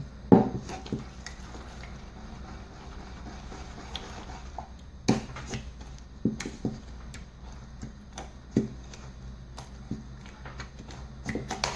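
Pestle stirring and scraping a thick, wet paste of ointment and parsley juice in a small mortar, with scattered light knocks against the bowl, the loudest about half a second in and again about five seconds in.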